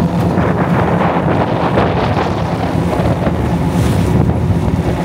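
Fishing boat under way: a steady low engine hum with water rushing past the hull and wind buffeting the microphone.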